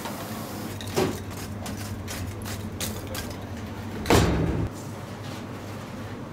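Kitchen clatter of metal on metal: a sharp knock about a second in, light ticks, then a loud half-second scrape of a metal tool over a charcoal grill's grate about four seconds in, over a steady low hum.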